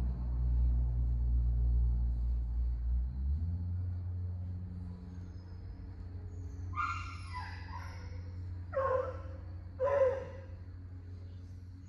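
A dog giving three short yips, about seven, nine and ten seconds in, the first a little longer and falling in pitch. Under them runs a steady low hum that drops in level about three and a half seconds in.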